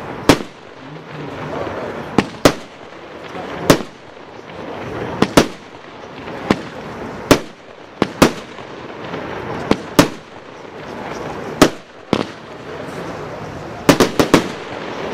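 A 25-shot fireworks cake (China Red Nakin Fire, CR5029) firing shot after shot: sharp bangs about one to two seconds apart, some in close pairs, with a quick run of four near the end. A continuous rushing, crackling noise fills the gaps between the bangs.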